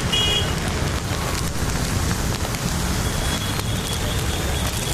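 Water flowing across a road surface: a steady rushing noise with a heavy low rumble.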